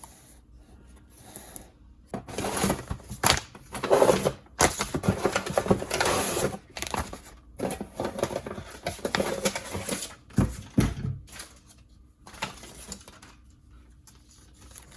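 A parcel being handled and opened by hand: irregular rustling and light clattering of packaging, busiest from about two seconds in until about eleven seconds in.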